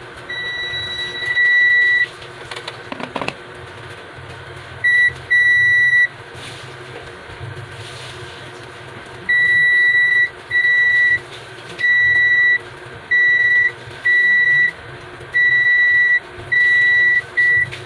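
Digital multimeter's continuity buzzer sounding a steady high beep about a dozen times, each under a second, at irregular spacing as the probes touch points on a TV's T-con board. Each beep marks a short across the part being tested: several capacitors on the board's 12 V line are found shorted. A brief clatter of handling about three seconds in.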